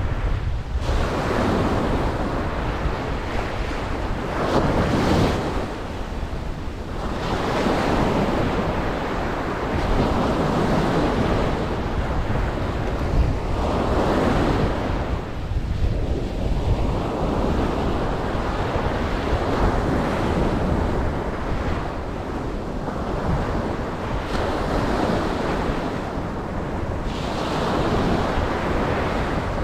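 Ocean surf breaking and washing up a beach, the noise swelling and easing in long surges every several seconds.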